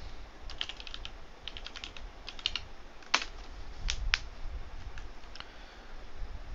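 Computer keyboard keys tapped in short quick runs of clicks, with a few louder single key presses about three to four seconds in.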